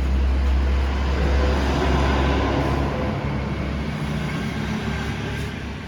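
A motor vehicle's engine running close by, a low rumble with road noise that is strongest for the first three seconds and then eases off.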